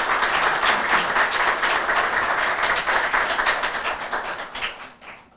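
A roomful of people applauding, many rapid overlapping hand claps, fading out near the end.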